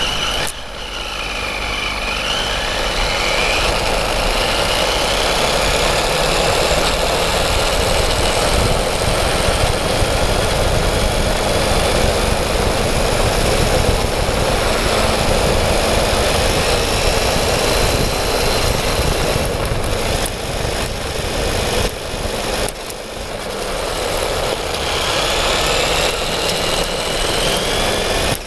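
Traxxas E-Revo VXL radio-controlled truck driving, its brushless electric motor and drivetrain whining and gliding up and down in pitch with speed over a steady rushing noise.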